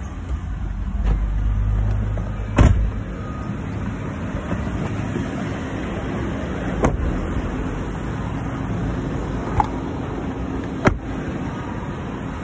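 Car door being opened and shut amid steady car and traffic noise: a handful of sharp knocks and clicks, the loudest about two and a half seconds in.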